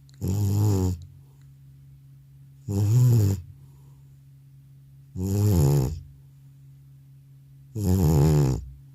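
Old cat snoring loudly in deep sleep: four snores, each under a second long, about two and a half seconds apart.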